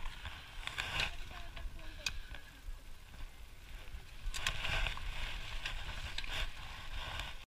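Mountain bike rolling over a gravel lot: wind rumbling on the microphone, tyres crunching on gravel, and a few light clicks and rattles from the bike, with faint voices in the background.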